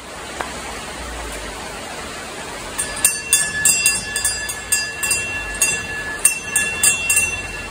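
A small wall-mounted chrome bell is rung over and over by pulling its cord, about three rings a second, each one ringing on at a steady pitch. Before the ringing begins about three seconds in, there is a steady hiss.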